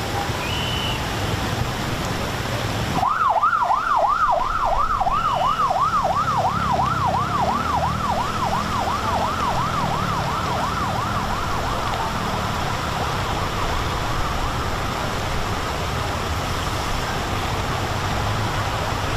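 An emergency siren in a fast yelp, sweeping up and down about three times a second, starts suddenly about three seconds in and fades away over the next ten seconds or so. Under it runs a steady low rush of floodwater.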